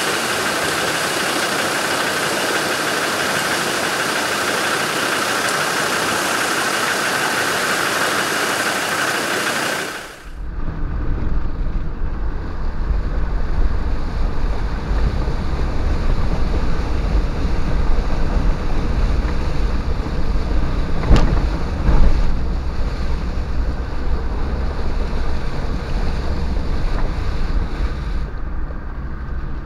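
Steady rushing of river water for about ten seconds. Then it cuts to a deep Land Rover Defender diesel engine drone as the vehicle drives through the river, with water splashing against it and two sharp knocks about a second apart past the middle.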